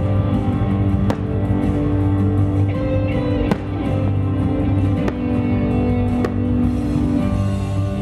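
Music with guitar playing, loud and steady, with four sharp cracks of firework shells bursting through it.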